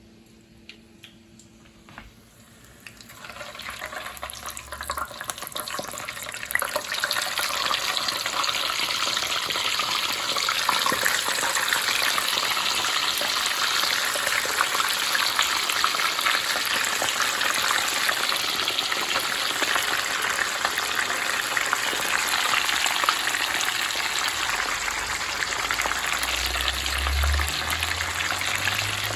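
Firm tofu slices frying in hot oil at about 325–350 °F: a sizzle that starts about three seconds in, builds, and holds steady and loud from about seven seconds on. A low rumble comes in near the end.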